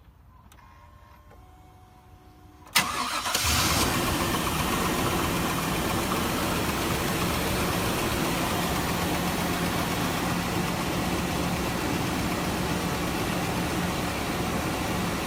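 Truck engine cranked over with a sharp click about three seconds in, catching almost at once and then idling steadily. The engine has a spun number-one rod bearing and lifter tick, but it is pretty quiet this time.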